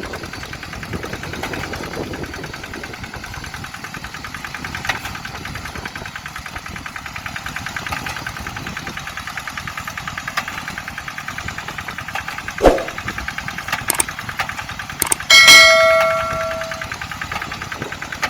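Kubota RD85DI2s single-cylinder diesel engine on a Quick Zeva G3000 two-wheel hand tractor, running steadily with a rapid knocking beat. Sharp knocks come near the end, followed by a loud metallic ring that fades over a second or so.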